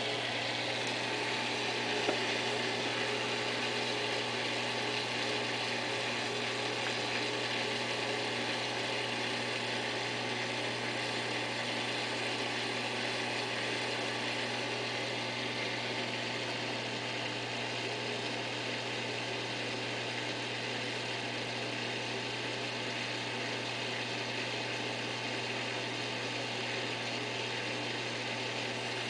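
Saltwater aquarium equipment running: a steady low electric hum from the circulation pumps over a constant hiss of moving water and bubbles.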